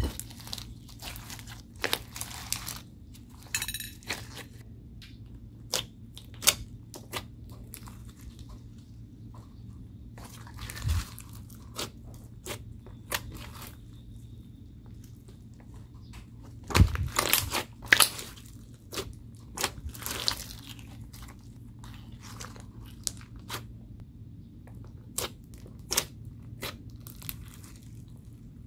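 Slime being worked by hand, giving irregular sticky clicks, pops and crackles, with a busier flurry about two-thirds of the way through.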